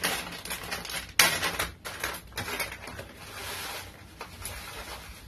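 Plastic bag of coarse fish salt crinkling as it is opened, with a sharp tear about a second in, then salt grains pouring from the bag into a hand with a steady hiss that fades.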